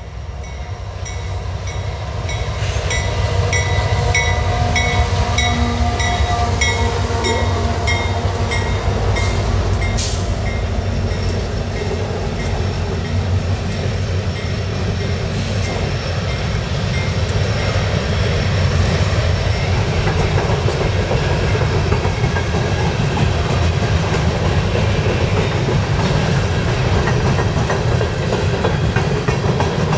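A CSX coal train passing close by. Its GE AC4400CW diesel locomotives rumble past as the sound swells over the first few seconds, then loaded coal hoppers roll by with a steady heavy rumble and wheel clatter. An even high ticking, about two a second, is heard through the first ten seconds.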